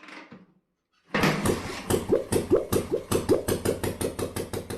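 1951 BMW R25's single-cylinder four-stroke engine running at a slow idle, a loud even thud of about five beats a second that starts about a second in.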